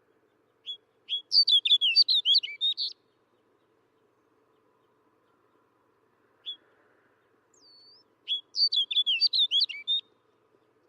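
Snow bunting singing: two short warbled song phrases of about two seconds each, several seconds apart, each led in by a single short note.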